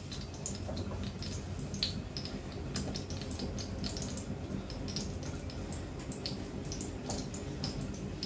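A pot of water at a rolling boil with green asparagus in it: steady bubbling with many small irregular pops, over a low steady hum.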